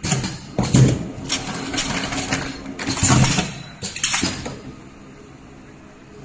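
Automatic spout pouch filling machine running: a steady low hum under a series of loud, noisy bursts over the first four and a half seconds, after which only the hum goes on.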